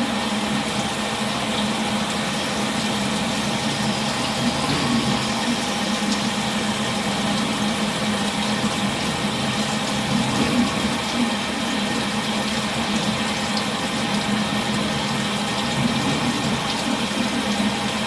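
AutoMateCNC VMC425 vertical CNC mill running a machining cycle: a steady, even hiss over a constant low hum, with no pauses.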